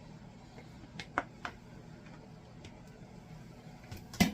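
A few light clicks and taps of utensils against dishes, about three close together a second or so in, then a louder knock near the end.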